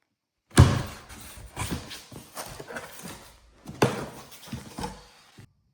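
A heavy thump about half a second in, then irregular knocks and clatter, with another loud knock near four seconds; the sound cuts off suddenly.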